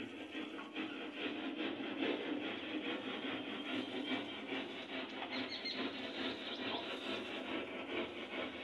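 Paint roller on an extension pole rolling over a wall, a steady scratchy rubbing.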